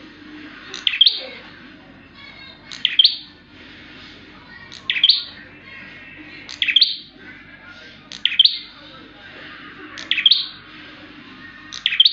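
A prinia (prenjak) giving loud, sharp calls, seven in all, one about every two seconds. Each call is a quick, high note.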